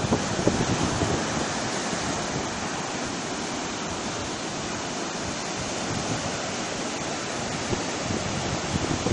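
Sea surf washing onto the beach, a steady rush, with some wind on the microphone.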